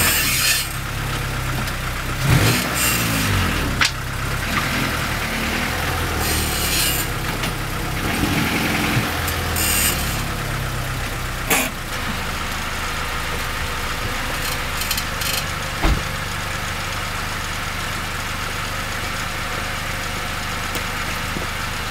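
1994 Honda Accord EX's engine idling steadily. In the first ten seconds a few short louder noises slide in pitch, and a few sharp clicks come later: the kind of weird noise the owner hears when the car stops, which he says is not the brakes because the pads are new.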